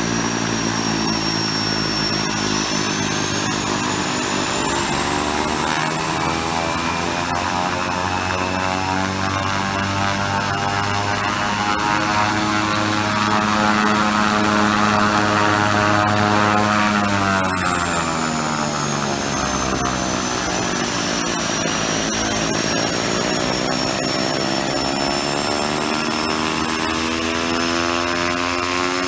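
Twin Pratt & Whitney Canada PT6A-28 turboprop engines of a Piper Cheyenne II running on the ground with propellers turning, a steady turbine whine over the propeller drone. The whine rises in pitch a few seconds in, holds, and falls back a little over halfway through, the sound growing somewhat louder just before it drops.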